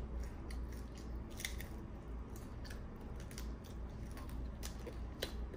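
A person chewing and biting pieces of home-made aloo paratha close to the microphone: an irregular string of small crackly, moist clicks.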